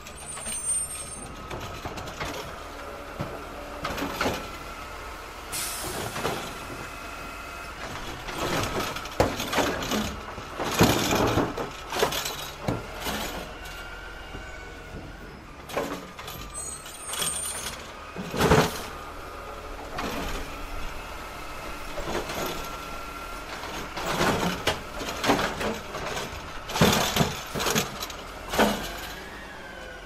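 Garbage truck's hydraulic arm lifting and emptying a dumpster: a steady whine under a run of metal clangs and bangs, the loudest about 11 and 18 seconds in, with a brief hiss of air early on.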